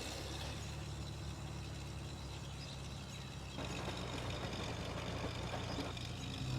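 Heavy machine's engine running steadily with a low, even drone.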